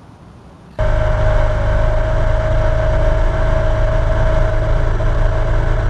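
Small boat's outboard motor running steadily at cruising speed under way, a steady whine over a low drone, cutting in abruptly just under a second in.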